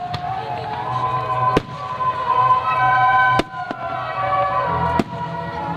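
Aerial firework shells bursting: three sharp bangs about a second and a half apart, with a couple of lighter pops between them, over music with long held notes.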